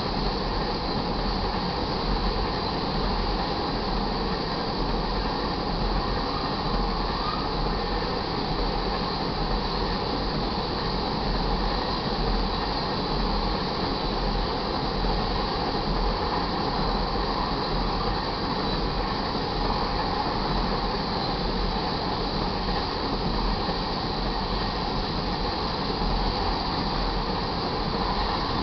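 Freight train of tank cars rolling past at a grade crossing: a steady rumble and clatter of steel wheels on the rails that holds level with no breaks.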